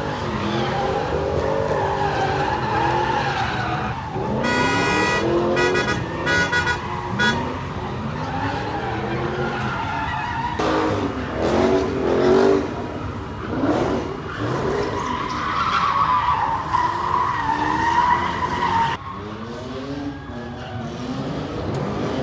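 Car engines revving up and down over and over while tyres squeal, from cars skidding in donuts. A sustained squeal wavers through much of it, and a brief high sound cuts in a few seconds in.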